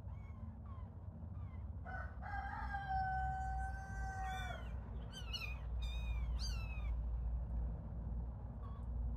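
Young kittens mewing in short, high, falling cries, with one long drawn-out steady call in the middle that lasts about two and a half seconds.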